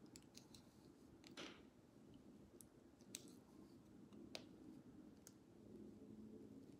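Near silence with scattered faint clicks and a soft rustle about a second and a half in, from fingers sectioning and twisting hair into a small ponytail.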